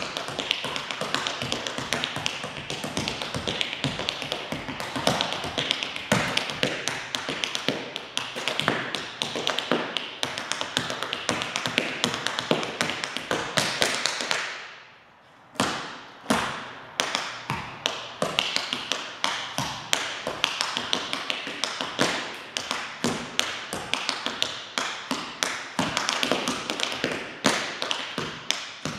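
Tap shoes striking the floor in a fast a cappella tap routine, with no music: dense, rapid rhythmic taps. About halfway through the taps stop for a second, then start again as single sharp strikes that pick up speed.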